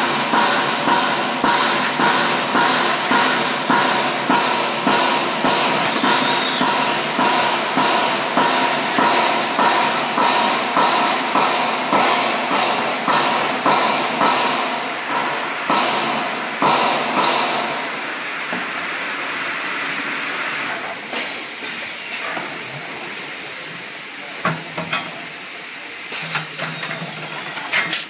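A 5-gallon water bottle filling machine running: a regular knocking about twice a second over a steady mechanical hum. The knocking stops about 17 seconds in, leaving a steady hiss with a few sharp clicks.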